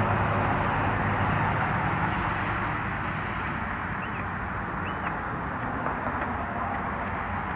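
Skateboard wheels rolling steadily on pavement, a continuous rumble that eases a little partway through.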